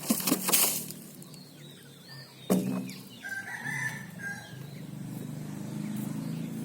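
A rooster crows once, about three seconds in, over a low steady engine hum. A loud noisy burst comes at the very start and a sharp knock at about two and a half seconds.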